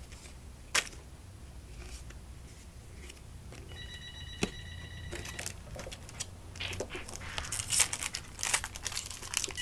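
A telephone rings with a steady electronic ring of several tones, once for about a second and a half near the middle and again at the very end. Card pack wrappers crinkle and tear in the second half.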